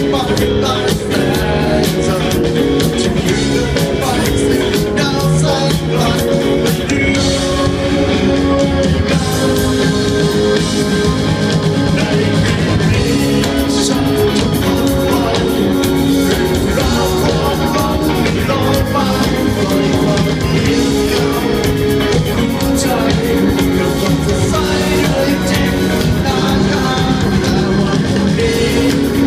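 Live rock band playing a song: a man singing into a microphone over electric bass guitar and keyboards, loud and steady throughout.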